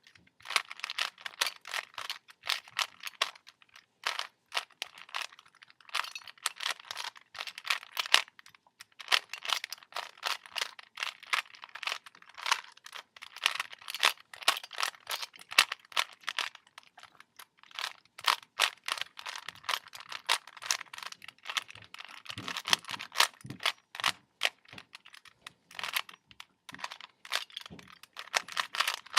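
A plastic Rubik's Cube being turned by hand, its layers clicking and rattling in quick runs of many turns, with short pauses about 4 and 9 seconds in.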